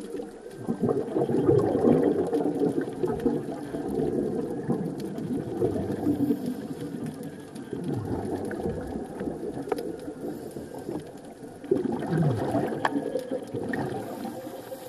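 Scuba diver's exhaled bubbles from the regulator, heard underwater through the camera housing: repeated surges of bubbling, the loudest about a second in and another about twelve seconds in.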